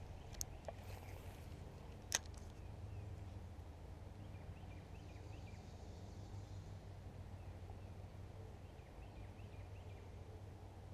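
Quiet canal-bank ambience: a low steady rumble of wind on the microphone with faint, scattered bird chirps, broken by a sharp click about two seconds in.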